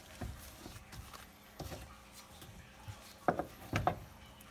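Raw bone-in rib steak and a butcher knife handled on a wooden cutting board: soft knocks and rubbing, with a few louder knocks a little over three seconds in.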